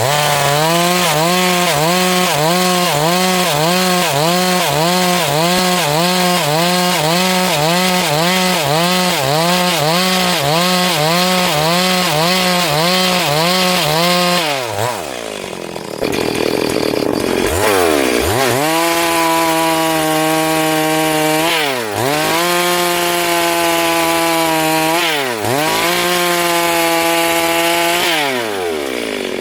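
Chainsaw at full throttle ripping lengthwise through a log, freehand milling it into lumber. For the first half its pitch wavers about twice a second. About halfway the revs fall away, then climb back, dip briefly twice and drop off near the end.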